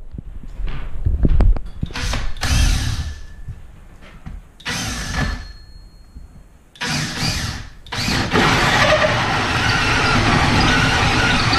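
Cordless drill boring a hole through a plywood wall panel: a few short bursts on the trigger, then, about eight seconds in, continuous steady drilling.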